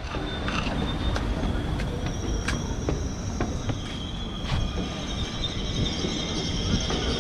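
Dakar TER commuter train on the tracks below, its wheels squealing in high, steady tones over a low rumble. The squeal sets in about two seconds in and grows louder near the middle.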